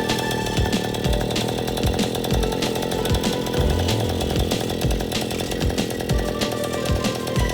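Riga 12 moped's small two-stroke engine running steadily, giving a continuous buzz.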